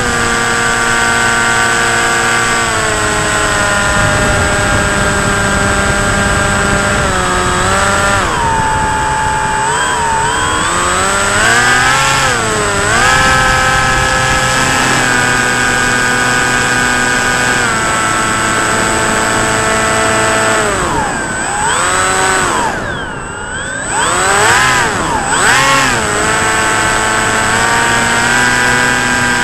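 Electric RC plane's motor and propeller whining, picked up by the plane's own onboard camera. The pitch holds steady, then rises and falls as the throttle changes, drops low for a moment about 22 seconds in and comes back up. Wind rushes over the microphone underneath.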